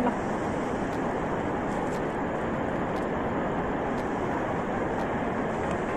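Steady, even background rumble of a large station hall, with no distinct events.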